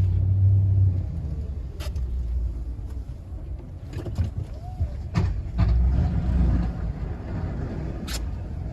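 Snowplow truck driving, a steady low engine rumble that swells twice, with a handful of sharp knocks and clunks spread through it.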